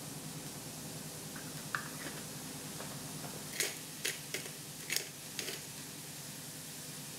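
A handful of short, sharp clicks and crunches, mostly clustered in the middle, as black pepper is added to a bowl, over a steady room hum.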